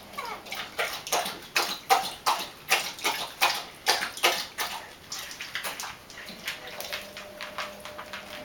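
Newborn Doberman puppies squeaking in a quick run of short, falling cries, about two to three a second, louder at first and softer after about halfway.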